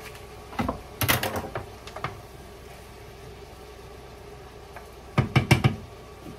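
A foil butter wrapper crumples about a second in. Near the end, a wooden spatula knocks and scrapes in a frying pan of mushrooms and onions in a quick run of knocks, over a faint steady hum.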